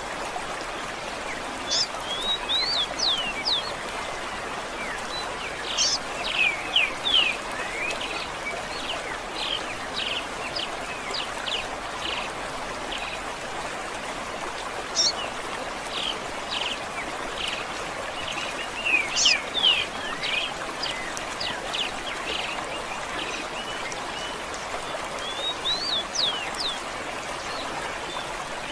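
Songbirds chirping in quick clusters of short, sharp, sliding notes, over the steady rushing of a running stream.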